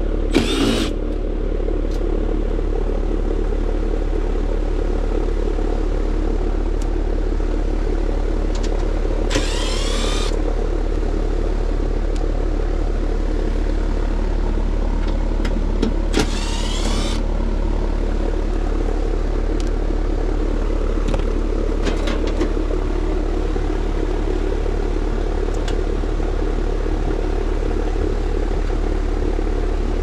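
Outdoor AC condenser unit running with a steady hum from its fan and compressor. Three short bursts of a cordless impact driver spinning up, about a second each, near the start, about nine seconds in and about sixteen seconds in, as screws are backed out of the service panel.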